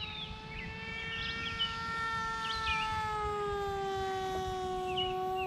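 Electric motor and propeller of a Mini AR Wing RC flying wing in flight: a steady whine whose pitch sinks a little about three seconds in.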